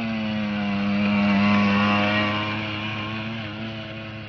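Suzuki LT50 kids' quad bike's 49cc two-stroke engine running at a steady pitch, getting louder as it passes close by about a second and a half in, then fading as the quad rides away.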